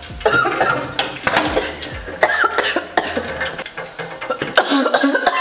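A girl's short coughs and wordless vocal noises, over clinks and scrapes of a metal utensil against a pan.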